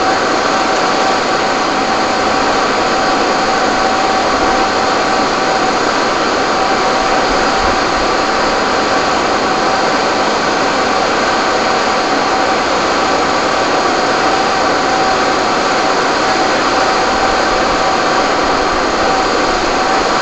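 Fire engines' motors and pumps running hard to feed hose and ladder streams: a loud, unchanging mechanical drone with a hiss and a few steady whining tones.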